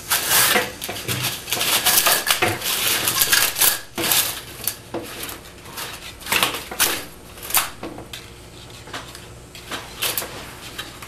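Mini-blind slats clattering and clicking against each other as they are handled while a new cord is pulled through them: a dense rattle for about the first four seconds, then scattered clicks.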